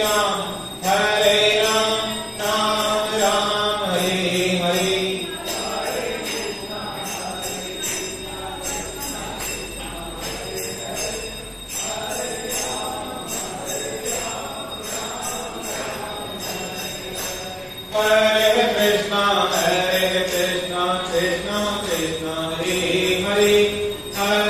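Devotional mantra chanting by singers with musical accompaniment, kept to a steady rhythm. It drops lower for a stretch in the middle and comes back louder about three-quarters of the way through.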